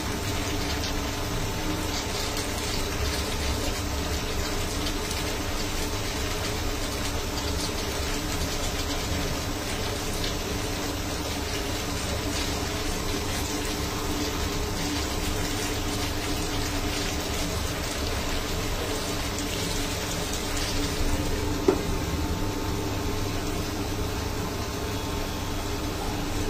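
Okra, potato and spice paste sizzling steadily in a frying pan, over a steady hum. A single sharp knock comes near the end.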